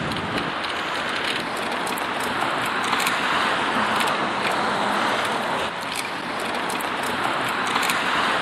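Road traffic: several cars pass one after another on a busy two-lane road, their tyre and engine noise swelling and fading.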